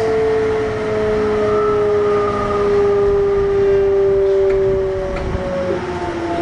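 Kintetsu 1021 series electric train's Hitachi GTO VVVF inverter and traction motors whining, heard on board: several tones glide slowly down in pitch as the train slows, with a change in the tones a little before the end.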